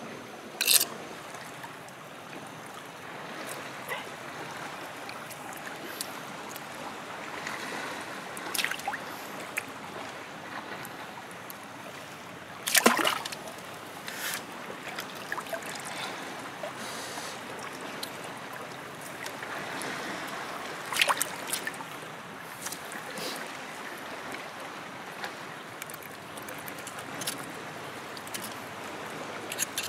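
Shallow water lapping and trickling over rock, with scattered wet squelches and clicks from a knife and hands working a sea cucumber. The loudest is a sudden wet smack about 13 seconds in.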